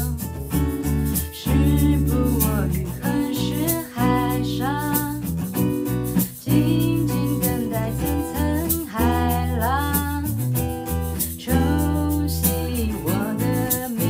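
Live band playing a mellow pop song: a woman singing over a strummed acoustic guitar and an electric bass, with a steady high ticking rhythm.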